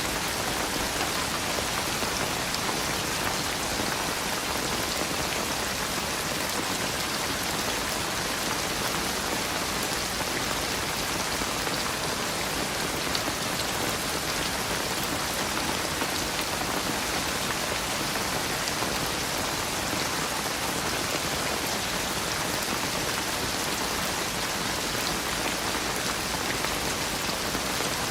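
Steady rain falling: an even hiss with scattered droplet taps, unchanging throughout.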